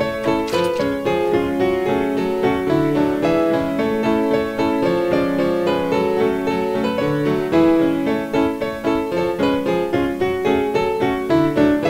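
Music: a keyboard instrument playing a steady stream of quick notes.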